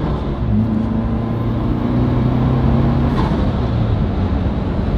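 The 2021 Ford Bronco's turbocharged four-cylinder engine, running a piggyback module that raises boost, accelerates through the gears. The revs climb steadily, then fall at an upshift about three seconds in.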